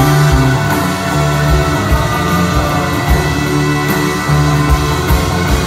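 Live band with an orchestral string section playing: held string chords over strummed acoustic guitar, with steady low beats underneath.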